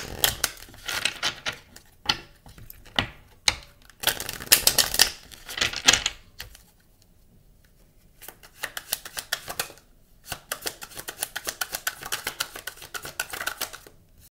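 A deck of oracle cards being shuffled by hand: fast runs of crisp card clicks in three spells with short pauses between, the last and longest running until near the end.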